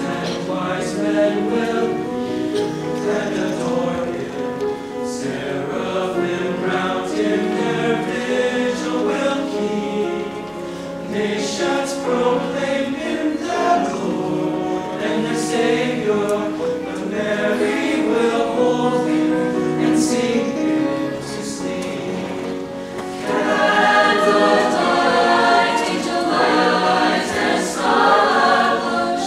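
A choir singing, growing noticeably louder about three-quarters of the way through.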